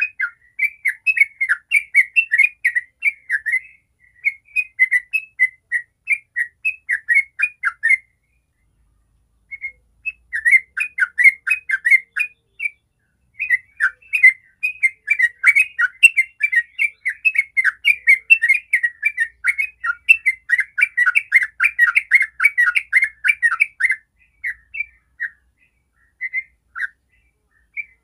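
Yellow-vented bulbul singing its rapid rolling 'ropel' song: a long run of quick, bubbly notes, several a second. The song breaks off for about two seconds roughly a third of the way in, resumes densely, then thins to scattered notes near the end.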